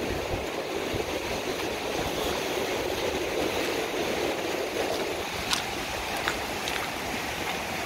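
Ocean surf breaking and washing up the beach, a steady rushing noise. A few sharp clicks come in the second half.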